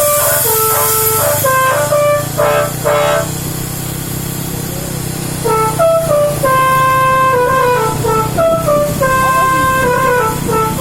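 Bus 'telolet' musical air horn playing a tune of stepped notes: a quick run of short notes for about three seconds, a pause of about two seconds, then a slower phrase with longer held notes. A steady low rumble runs underneath.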